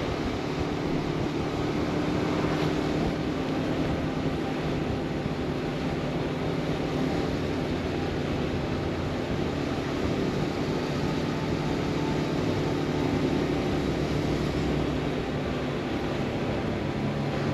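Motorcycle engine running steadily at cruising speed, heard from on the bike, with wind rushing over the microphone.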